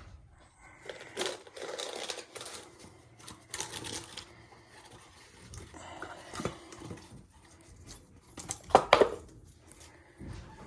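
Irregular rustling and small clicks of hand work on furnace parts, with a sharp cluster of clicks about 9 seconds in.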